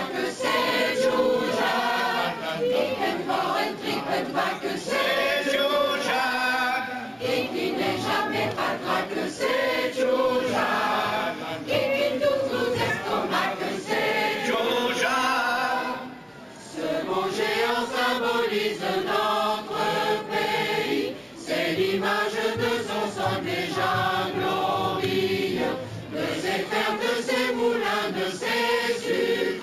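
Choral music: a group of voices singing together, with a brief break about halfway through.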